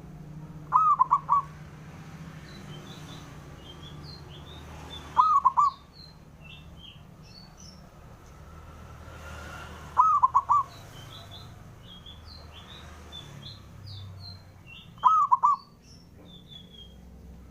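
Zebra dove (perkutut) cooing: four short rolling phrases of a few quick notes each, spaced about five seconds apart. Other small birds chirp faintly and high in between.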